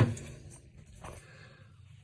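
A sharp knock right at the start, then a faint tap about a second in: handling noise from a TV power supply circuit board being turned over and set down on a workbench.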